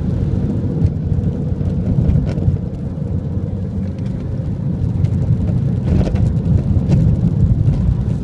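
Mini Cooper S Mk.II automatic at speed, heard from inside the cabin. Its turbocharged four-cylinder engine runs steadily under a heavy rumble of road and tyre noise, with a faint steady tone through it and a brief knock about six seconds in.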